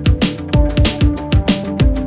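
Electronic background music with a steady drum beat, about three hits a second, and falling bass notes.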